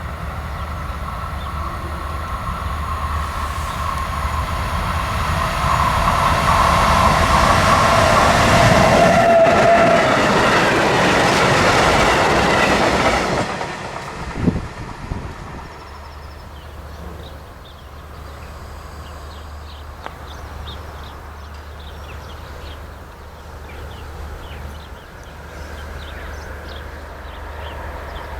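A train passing on the railway line, growing louder to a peak about six to thirteen seconds in, then dropping away abruptly, with a single short knock just after.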